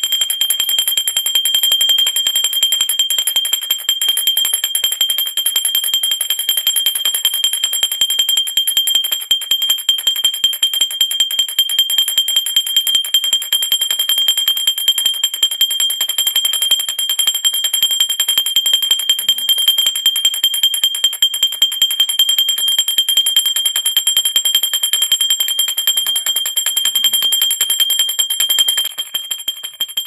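Brass worship hand bell rung continuously, its clapper striking several times a second. It gives one steady high ringing tone with higher overtones above it, and grows slightly quieter near the end.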